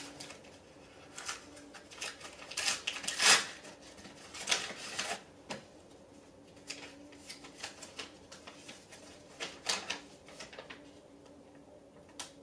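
Scattered, irregular soft clicks, taps and rustles, over a faint steady hum.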